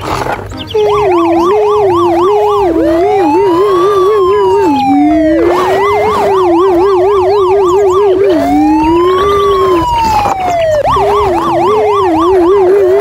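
Toy police car's electronic siren, starting about a second in and switching back and forth between a fast yelp and a slow rising-and-falling wail, with a second, lower warbling tone underneath.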